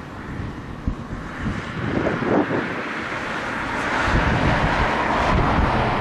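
Embraer E190's twin General Electric CF34 turbofan jet engines on final approach, a steady jet noise that grows louder as the aircraft nears. Wind buffets the microphone in gusty low rumbles.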